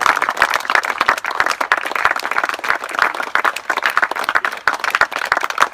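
A crowd of people applauding: many hands clapping steadily, dense and continuous.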